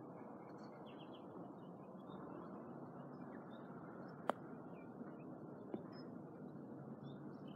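A golf club strikes a ball once with a single sharp click about four seconds in, followed by a fainter tap about a second and a half later. Under it runs a faint, steady outdoor hiss with scattered small bird chirps.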